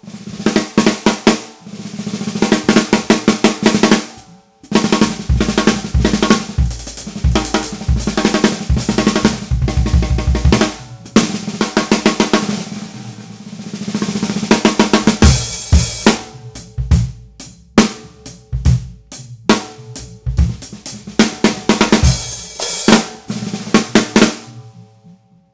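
A 6.5x14-inch Joyful Noise TKO seamless bronze snare drum played with sticks: fast patterns, rolls and sharp accents, each stroke leaving a ringing tone. There is a brief pause about four seconds in, and the playing thins out to scattered hits near the end.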